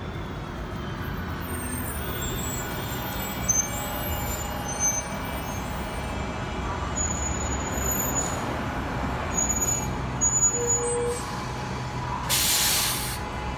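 Street traffic with a transit bus running as it passes, its engine a steady low rumble, and a few short high squeaks in the middle. About twelve seconds in comes a burst of hissing air from the bus's air brakes.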